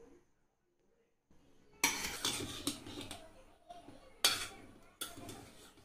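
Slotted metal ladle stirring cooked spiced rice in a pressure cooker, clanking and scraping against the pot's metal sides. It starts after a second or so of quiet, with sharp clanks about two, four and five seconds in.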